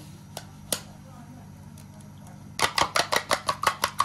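Two sharp taps early on as an egg is cracked over a ceramic bowl. Then, about two and a half seconds in, a fork starts beating eggs in the bowl: fast, even clinking of metal against ceramic, about eight strokes a second.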